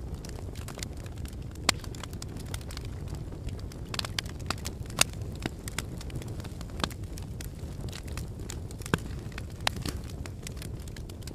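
Fire burning with a steady low rumble and irregular sharp crackles and pops, several sharper pops standing out now and then.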